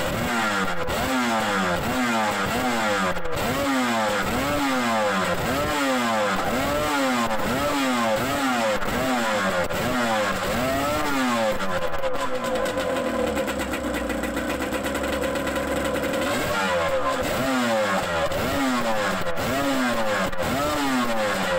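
Yamaha C40 two-stroke, two-cylinder outboard with twin tuned expansion-chamber exhausts running on its first test start, revved up and down in quick repeated blips about once a second. Past the middle it holds a steady speed for about four seconds, then the blipping resumes.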